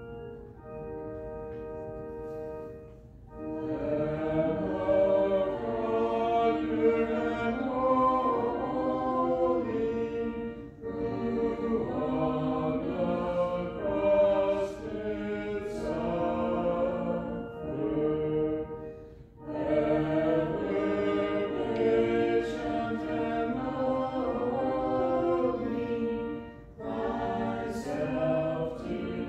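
A held instrumental chord, then a church congregation singing a hymn line by line, with short breaths between phrases.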